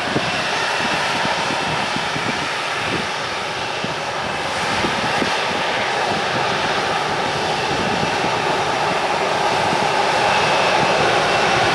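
Airbus A321-211's CFM56 turbofan engines running at low thrust as the airliner taxis: a steady jet rush and whine with a faint high tone, growing a little louder toward the end.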